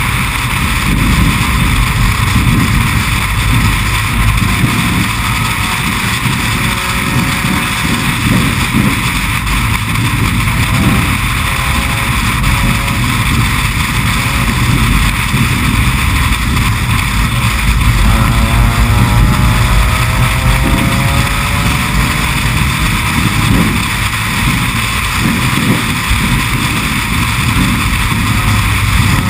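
Race car at speed: engine running hard under a loud, steady low rumble of road and wind noise on the camera microphone, with faint rising engine tones about two-thirds of the way through.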